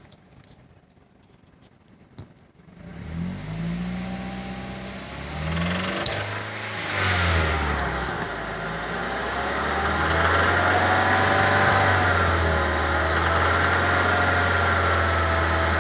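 2006 Mazda3 s's 2.3-litre four-cylinder engine revved up and down a few times, then held steady at raised revs for the second half, with a wavering higher tone riding over the engine note. The owner hears a strange noise from this engine at around 3000 rpm.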